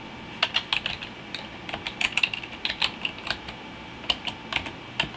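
Typing on a computer keyboard: a quick, irregular run of key clicks, a short pause about three and a half seconds in, then a few more keystrokes.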